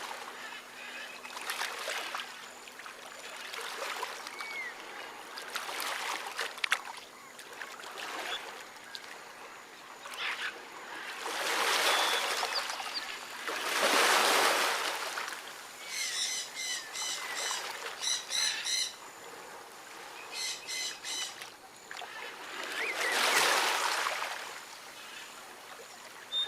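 Rainforest birds calling: scattered short notes, and a rapid series of repeated notes a little past halfway that comes again briefly soon after. Behind them, a rushing noise swells up and dies away several times.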